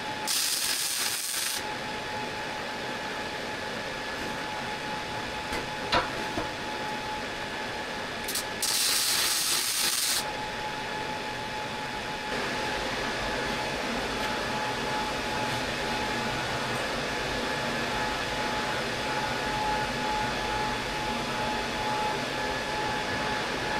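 MIG welding in two short bursts, each a loud hiss about a second and a half long, one at the start and one around nine seconds in, over a steady shop hum with a faint steady tone. A single sharp click about six seconds in.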